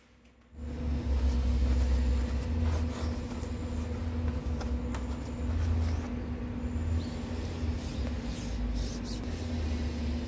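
SIP Hydroptic No. 6 jig borer running a six-cartridge face-milling head at about 310 RPM, one insert set low like a fly cutter, taking a light skim cut across the top plate of a welded stand. A steady low rumble with a constant hum starts about half a second in.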